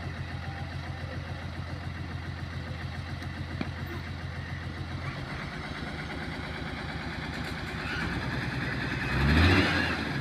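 Hyundai 5-ton dump truck's diesel engine idling with a steady rapid pulse, then revving up briefly near the end.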